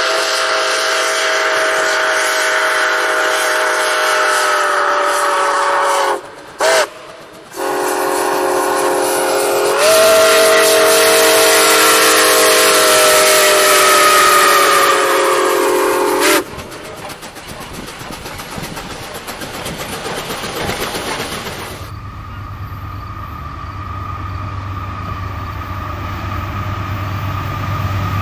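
A steam locomotive's chime whistle blows a long blast, a short toot, then a second long, louder blast that cuts off sharply, each note sagging slightly in pitch. Running noise of the train follows, then the low, steady rumble of an approaching diesel locomotive.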